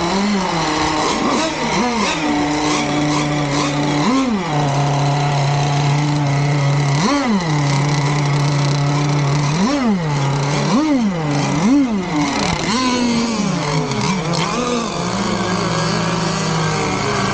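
Small two-stroke gas engine of an RC race boat idling, revved in about eight short throttle blips that each rise and fall sharply in pitch; after about fifteen seconds it settles to a steadier, lower note.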